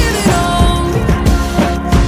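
Pop music with no lead vocal: a steady programmed drum beat under keyboards and repeating gliding synth tones.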